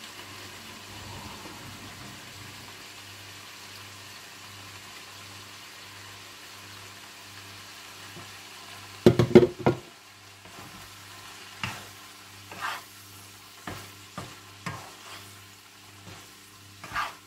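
Carrots sizzling in a frying pan, a steady hiss for the first nine seconds or so. Then comes a loud clatter against the pan, followed by single knocks and scrapes about a second apart as a wooden spatula stirs the vegetables.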